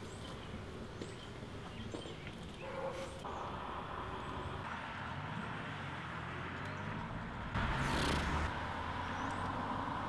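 Faint outdoor background noise on a street, with a louder rush of noise about eight seconds in.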